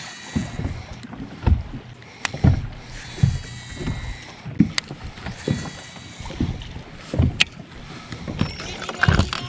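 Small waves slapping irregularly against a bass boat's hull as low thumps, with a few sharp clicks.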